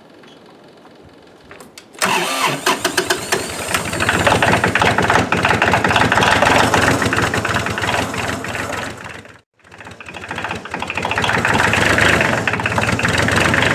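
Cold diesel tractor engine with glow plugs cranking about two seconds in, catching within a couple of seconds and then running steadily: a cold start after sitting out in snowstorms. The sound breaks off for a moment about nine and a half seconds in, then the engine is running again.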